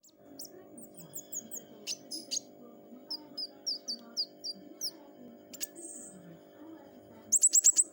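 Pentis raja songbird singing sharp, high chirps and short downslurred notes in quick phrases, ending in a loud rapid run of five notes, over a steady low hum.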